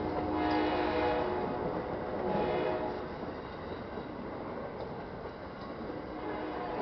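Amtrak passenger cars rolling slowly past on the rails with a steady rumble. The locomotive's air horn sounds faintly in the first three seconds, then dies away.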